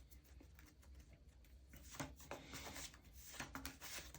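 Near silence: room tone with a few faint soft ticks in the second half.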